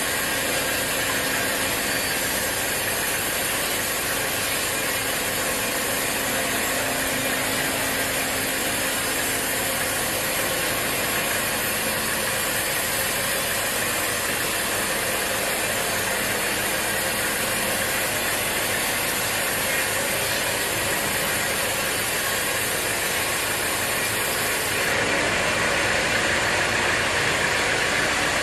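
Sawmill machinery running steadily, a dense, even mechanical noise that gets a little louder near the end.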